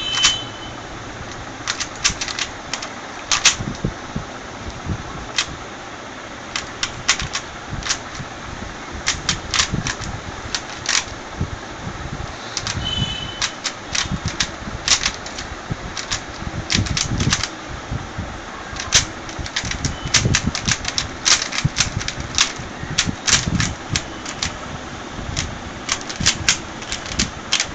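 Rubik's cube being turned rapidly during a speedsolve: its plastic layers click and clack in quick, irregular runs of turns.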